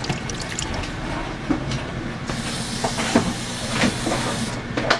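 Water pouring for about two seconds in the middle, a bright hiss, over a steady low hum, with a few light knocks of cookware.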